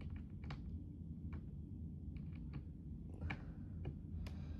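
Scattered small clicks and taps of hands handling parts and connectors inside an opened iMac G5, about half a dozen spread unevenly, over a steady low hum.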